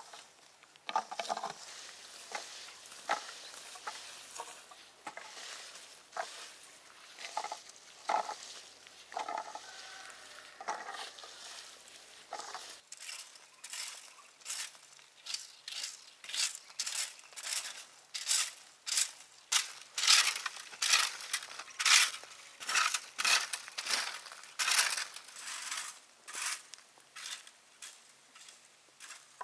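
A rake dragged through dry, spiky chestnut burrs, loose chestnuts and fallen leaves, making scraping, rattling strokes. In the second half it settles into a steady rhythm of crisp rustling strokes, about two a second.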